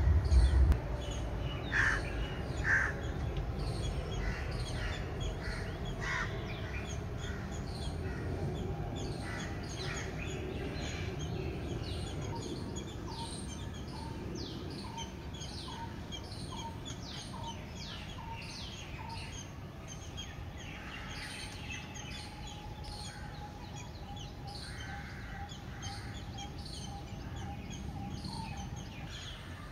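Birds calling in the trees: a busy mix of short chirps and caw-like calls, with a run of evenly spaced low piping notes, a little over one a second, through the middle. A low rumble in the first second.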